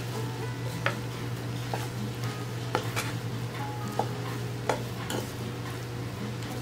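Wooden spatula stirring and turning fried rice in a nonstick frying pan, with irregular scrapes and taps of the spatula against the pan.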